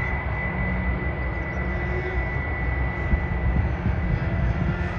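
Jet airliner engines running: a low rumble with a steady high tone over it.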